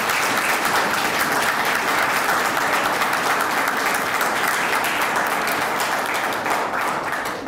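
Audience applauding: many hands clapping steadily, beginning to die away near the end.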